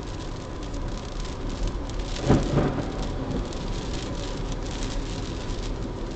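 Rainstorm heard from inside a car's cabin: steady rain on the roof and windshield, with one sudden loud thunderclap a little over two seconds in.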